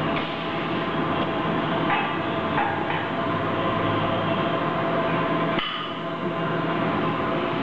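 High-frequency plastic welding machine running with a steady hum and mechanical noise. A few light knocks come two to three seconds in, and the noise dips briefly with a knock near six seconds.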